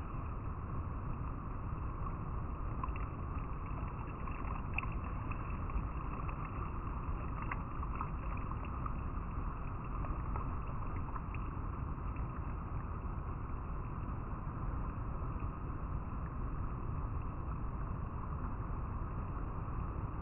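River water flowing over rocks: a steady rushing and rippling, with small splashes and drips through the middle.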